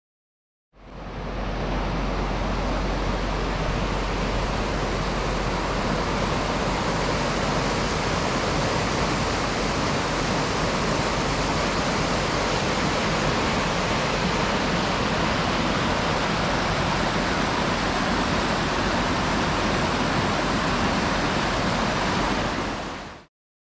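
Rushing water of a mountain river swollen by rain, a steady, dense sound that fades in just under a second in and fades out near the end.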